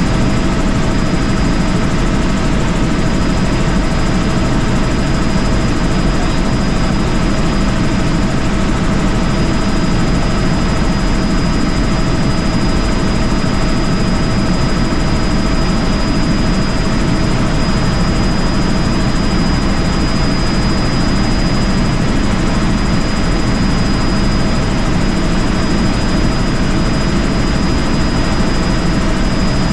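Helicopter in flight: steady, unbroken rotor and engine noise with a thin, steady high whine above it.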